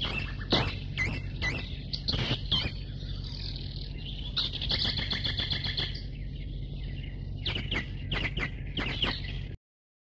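Birds chirping and calling, many short chirps with a trilled stretch in the middle, over a low steady hum; the sound cuts off suddenly near the end.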